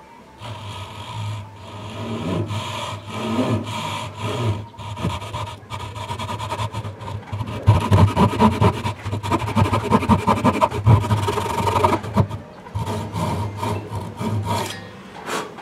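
Fine-toothed hand saw cutting through a small block of wood in quick back-and-forth rasping strokes. The strokes are busiest and loudest in the middle and ease off briefly near the end.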